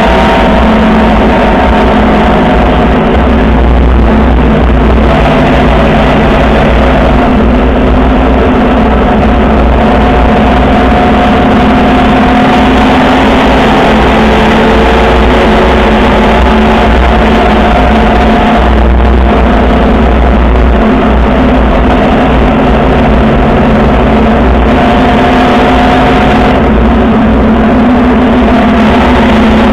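Motorcycle engine running at road speed, its pitch drifting slowly up and down with the throttle, over a steady low wind rumble.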